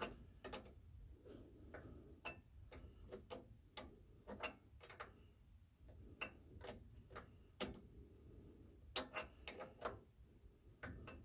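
Adjustable wrench turning the throttle-cable clamp nut at a Kohler Magnum 18 engine's carburetor: faint, irregular clicks as the wrench works the nut, a few in quick succession near the end.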